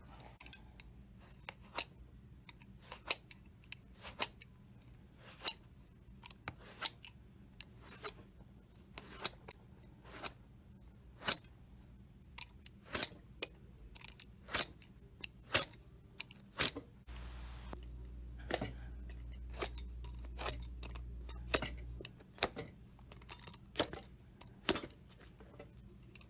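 Hand-tool work at a shoe repair bench: a long series of short, sharp clicks and snips at irregular intervals, about one or two a second. A low hum joins in for about five seconds two-thirds of the way through.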